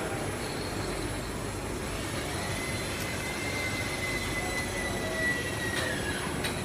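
Automatic sauce filling and capping machine running with a steady mechanical hum and hiss. A thin high whine sets in about two seconds in and sags slightly in pitch as it fades, and a couple of sharp clicks follow near the end.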